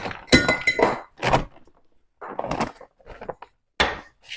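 A shopping bag rustling and crinkling in short irregular bursts as items are pulled out of it, with a few dull thuds of things set down on a kitchen countertop.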